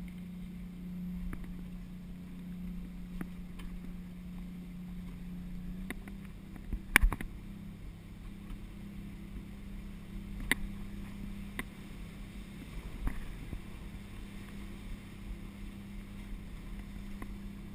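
The boat's Detroit 6-71 two-stroke diesel running steadily under way, a steady drone whose pitch steps up slightly about six seconds in. A few sharp knocks come through over it, the loudest about seven seconds in.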